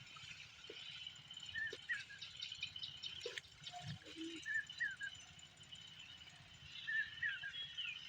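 A bird repeating the same short call phrase about every two and a half seconds, over a steady high hum of insects.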